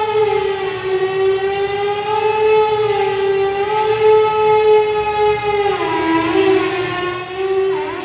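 Air-raid siren sounding a sustained steady tone that wavers slightly, dipping in pitch about six seconds in and again just before the end.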